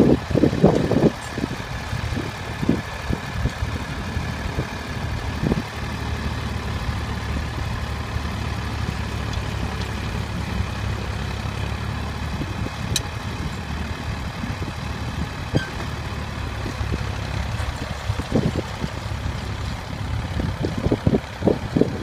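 Tractor engine running steadily under load as it pulls a plough through the soil. Wind buffets the microphone in bursts near the start and again near the end.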